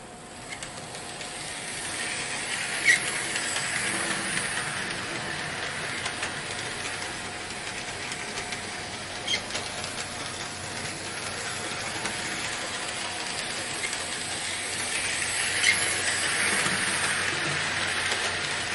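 Bachmann HO scale model train running on its track: a steady whirring of the small electric motor and wheels on the rails, swelling twice as it comes round, with a few sharp clicks.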